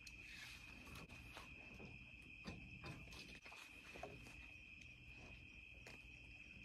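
Faint, steady chirping of crickets, with a few soft clicks and knocks spread through.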